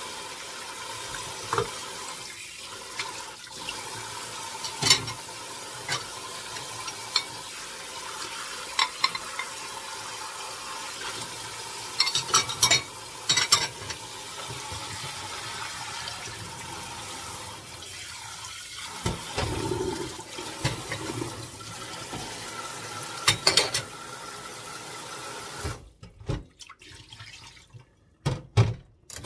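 Kitchen faucet spraying water steadily into a stainless steel sink as dishes are rinsed, with scattered clinks and knocks of dishes and a pot against the steel. Near the end the water shuts off, leaving only a few knocks of the pot.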